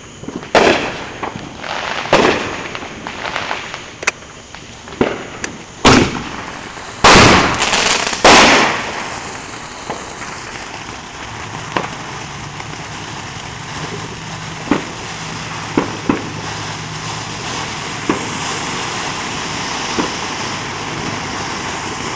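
Consumer fireworks going off: a string of sharp, loud bangs over about the first nine seconds, then ground fountains spraying sparks with a steady hiss and a few scattered pops.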